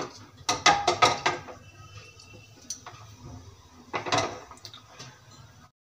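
Cumin seeds crackling in hot oil in a pressure cooker, tempering: a quick run of sharp pops about half a second in, a single pop near the middle and another short burst about four seconds in.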